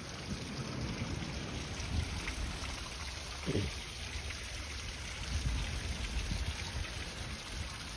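Steady wash of sea surf and wind on a sandy beach, with low gusts buffeting the microphone.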